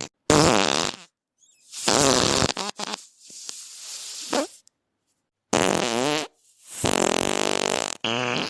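Fart sound effects: a string of about six separate farts with short silences between. Most are brief and wobble in pitch, and one in the middle is longer and quieter.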